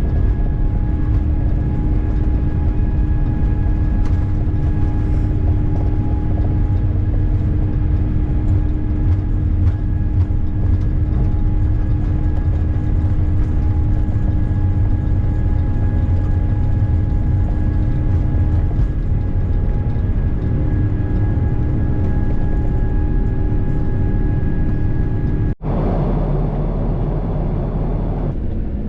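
Jet airliner cabin noise: a steady deep rumble of engines and airflow with a few steady hums over it. A sudden cut near the end switches to a brighter rushing noise without the hums.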